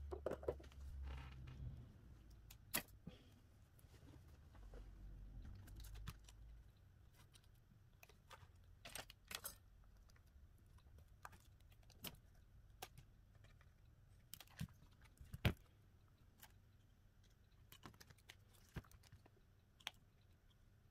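Faint, scattered small clicks and taps of tools and smartphone parts being handled on a workbench, with one sharper click about two-thirds of the way through and a few dull bumps in the first seconds.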